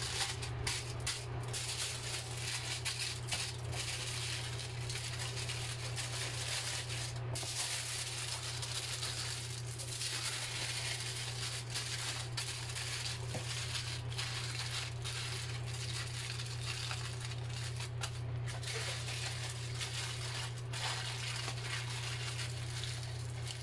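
Aluminum foil crinkling and crackling as it is folded and pressed by hand around a whole tilapia, an irregular, continuous rustle over a steady low hum.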